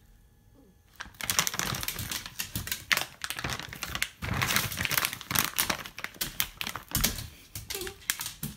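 A small dog's toenails clicking and tapping rapidly and irregularly on a wooden parquet floor as it prances about, starting about a second in; the Shih Tzu's nails are overdue for a trim.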